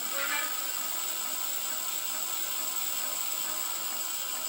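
Crystalyte brushless hub motor spinning unloaded at low speed under controller power: a steady whir with a faint electric whine. Right at the start it briefly rises in pitch as it picks up speed.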